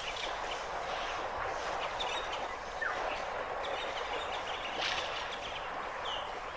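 Steady outdoor hiss with a few faint bird chirps.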